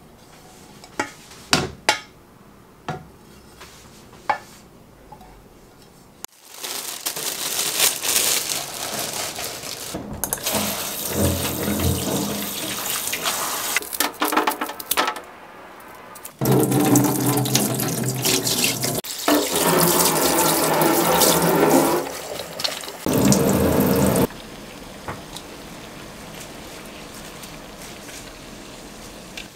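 Kitchen tap running hard into a stainless steel sink as leafy greens are rinsed under it. The flow changes in strength several times and stops about 24 seconds in. Before the water starts there are a few sharp clicks as frying pans are handled.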